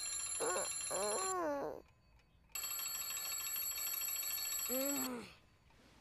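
Cartoon alarm clock bell ringing in two long rings with a short break between. Over each ring a child's voice groans, sliding up and down in pitch.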